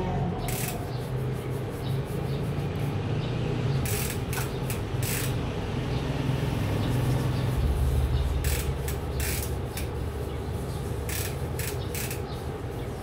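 A stiff brush scrubbing a mountain bike's degreased rear cassette and chain, in irregular bursts of short bristle strokes over a steady low hum.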